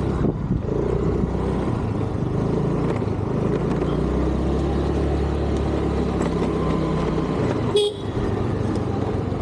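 Road traffic with vehicle engines running steadily and a horn sounding, plus a short sharp click near the end.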